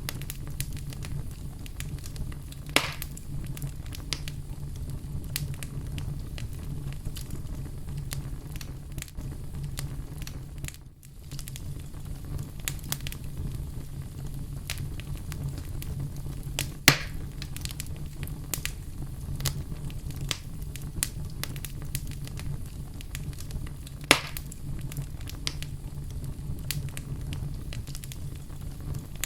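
Fire in a fireplace crackling: a steady low rumble of flame under many small scattered pops and clicks, with three louder sharp pops spread through.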